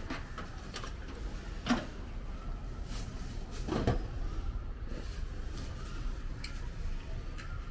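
Food-stall clatter of metal cups and utensils, with a few sharp knocks about two and four seconds in and lighter clicks between, over a steady low hum.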